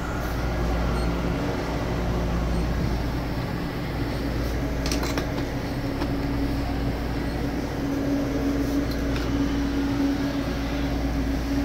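Steady mechanical hum of café machines, with a low steady tone that grows stronger past the middle. A few sharp clacks of a metal portafilter being tamped and handled about halfway through.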